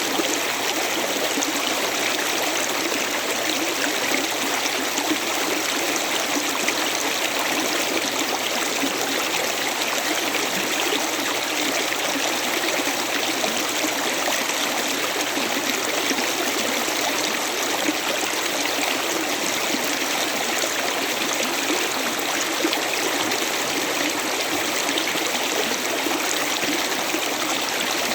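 A river flowing steadily, with an even rushing and trickling of water over stones.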